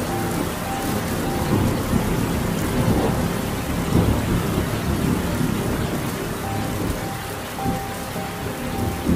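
Thunderstorm: steady heavy rain with a rolling rumble of thunder that swells about a second and a half in and dies away over the next few seconds. Faint held music notes sound underneath.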